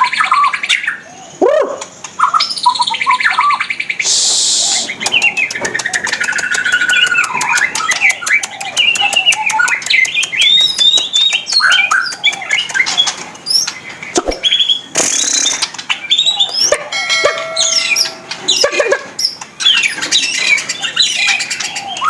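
White-rumped shama (murai batu) singing in full voice: a long, varied run of whistled notes that rise and fall, with rapid rattling trills and a few short harsh, hissy notes.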